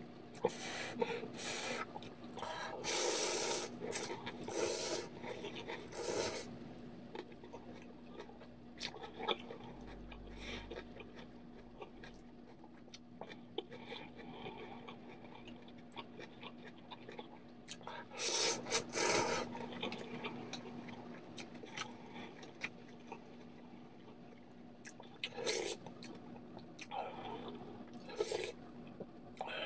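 A person slurping instant ramen noodles in several separate noisy slurps, the biggest run in the first few seconds and another strong one past the middle; near the end, broth is slurped from a spoon.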